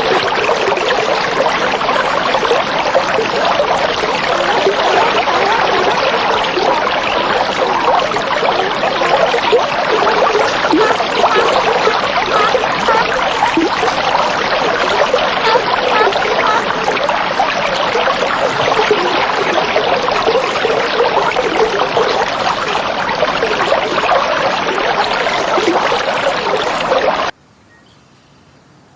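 Steady rush of running or splashing water. It cuts off suddenly near the end.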